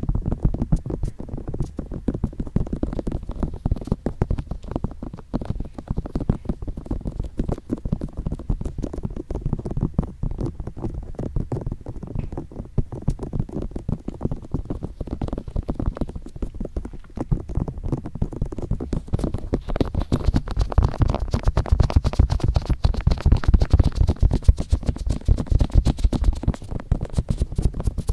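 ASMR ear tapping and touching: fingertips tapping and rubbing rapidly on an ear close to the microphone, a dense, muffled patter. About two-thirds of the way through it grows busier and brighter.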